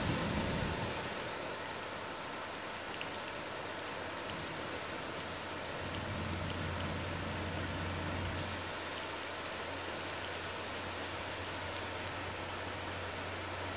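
Heavy rain pouring down, a steady hiss of drops on a wet road and gravel yard. A faint low hum comes in about six seconds in.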